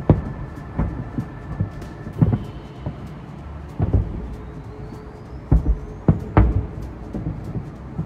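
Fireworks display: distant aerial shells bursting as deep booms, about one a second at uneven spacing, over a continuous low rumble.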